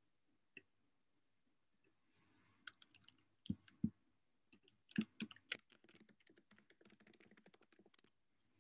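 Computer keyboard typing and clicking, faint: a few scattered clicks, two soft thumps about three and a half seconds in, then a quick run of keystrokes for about two seconds near the end.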